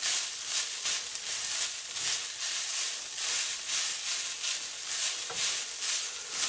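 Ground beef sizzling in a nonstick skillet while a plastic spatula stirs and scrapes through it in quick, even strokes, about three a second.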